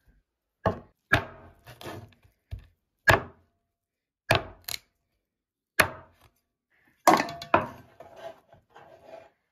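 Meat cleaver chopping pork ribs on a wooden chopping block: a string of sharp, irregular heavy blows, about one or two a second, each ringing briefly.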